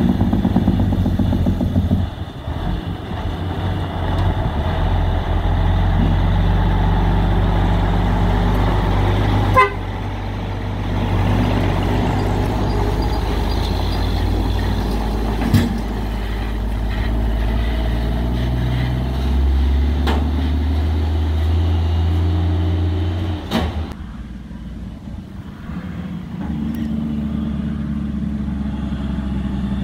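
Diesel engine of a loaded sugarcane tractor-trailer running as the truck approaches, passes close by and pulls away, with a few sharp knocks along the way. The engine sound drops off suddenly near the end as the truck moves off.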